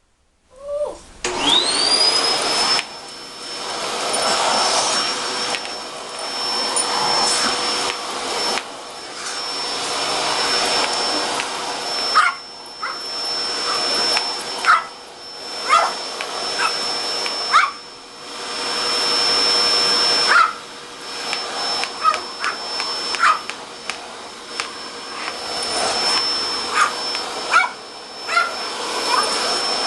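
A vacuum cleaner starts about a second in, its whine rising to a steady high pitch, and runs on. A papillon barks and yips at it again and again through the second half.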